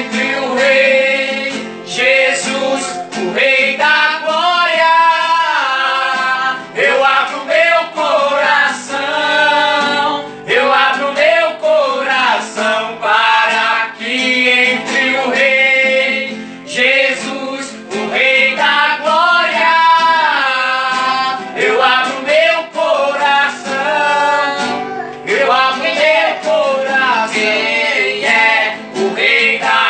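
Men singing a Portuguese-language gospel praise song to an acoustic guitar accompaniment.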